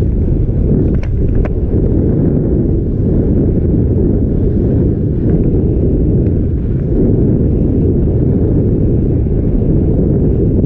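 Loud, steady wind rushing and buffeting on the microphone of a speed flyer moving fast over a snow slope, a deep rumble with a couple of faint ticks about a second in.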